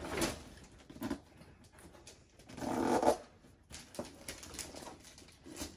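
Rustling and handling of a large gift-wrapped box being pulled out from under bed blankets and lifted, in a few short bursts, with the loudest, a fuller rustle, at about three seconds in.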